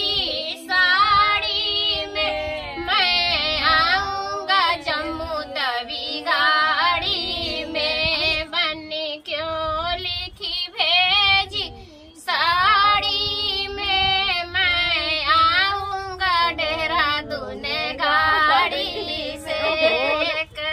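A woman singing a banna geet, a north Indian folk wedding song for the groom, with a short pause about twelve seconds in.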